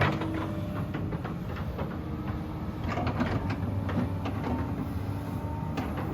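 Komatsu PC210LC-7 excavator's diesel engine running steadily, with irregular metallic clanks and knocks from the machine throughout.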